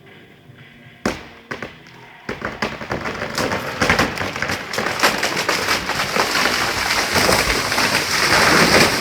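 A big tree falling: a sharp crack of the trunk giving way about a second in, then a swelling rush of snapping and crashing wood and branches as it comes down through a neighbouring tree, loudest just before the end.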